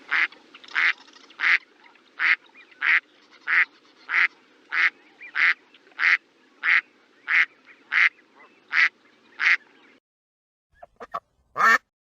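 A duck quacking in a long, steady series of short quacks, about three every two seconds, which stops a little before the end. A few short sounds follow, the last of them loud.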